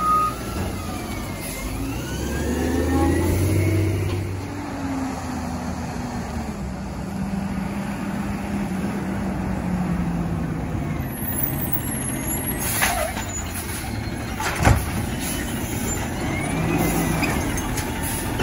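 Automated side-loader garbage truck's engine running and revving as the truck moves. An air-brake hiss comes about two-thirds of the way through, followed by a single sharp bang, and the engine keeps running as the lift arm works near the end.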